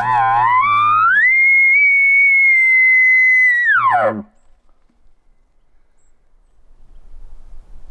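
Elk bugle blown on a hunter's camouflaged bugle tube, imitating a bull elk. It starts with a low grunting tone, climbs into a high whistle held for about two and a half seconds, then falls back to a low grunt and ends about four seconds in.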